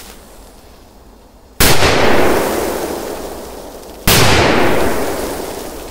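Two large firecrackers exploding, one about a second and a half in and the next about two and a half seconds later. Each is a single sharp bang followed by a long fading echo.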